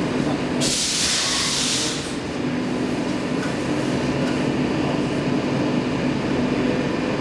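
Stockholm Metro C14 train standing at a platform, heard from inside the car: a steady hum with a low tone, and about a second in, a loud hiss of released compressed air lasting about a second and a half.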